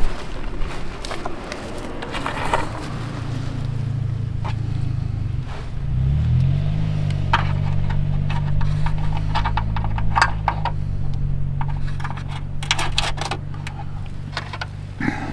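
Metal running-board brackets and bolts clinking and scraping as they are handled and fitted. A steady low motor hum comes in a few seconds in and shifts in pitch briefly around the middle.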